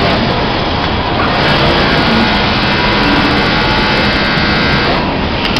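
Steady mechanical din of a garment factory floor, industrial sewing machines and fans running together. From about a second in until near the end it turns brighter and hissier, with a faint steady whine on top.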